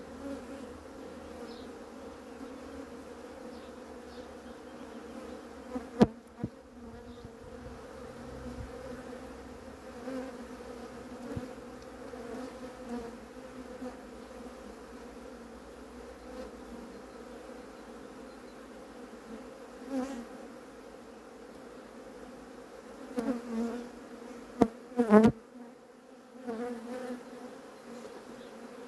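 A honeybee colony buzzing steadily around an opened hive, swelling louder now and then as bees fly close. A sharp knock sounds about six seconds in and a few more near the end.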